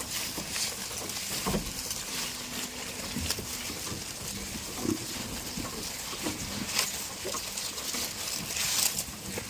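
Goats calling, short scattered sounds, over a steady hiss with small knocks.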